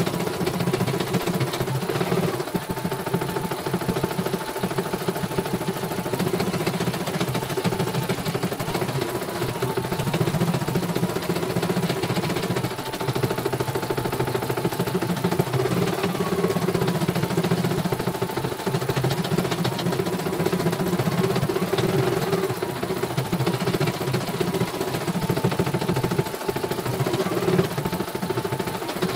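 CNY portable computerized embroidery machine stitching a design: the needle runs in a rapid, steady chatter over the motor's whir, with a faint whine that steps up and down in pitch every few seconds as the hoop moves.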